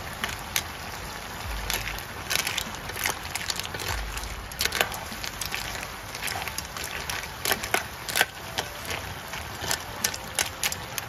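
River snails frying in a wok over a wood fire: a steady sizzle with many irregular sharp crackles and pops.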